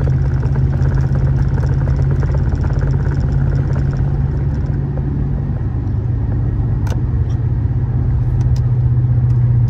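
Inside the cab of a moving truck: engine and road noise with a steady low hum, and a few light clicks in the second half.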